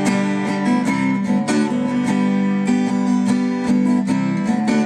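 Lyon & Healy parlor guitar with silk-and-steel strings and a bone nut and saddle, played as an instrumental passage: a steady run of plucked notes and chords ringing over a sustained bass.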